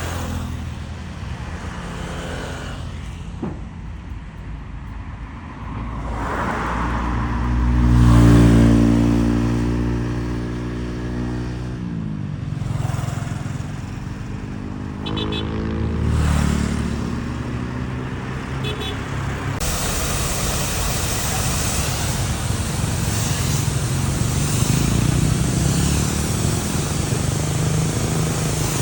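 A heavy vehicle's engine revving up to a loud peak, settling back, revving again more briefly, then running steadily under load.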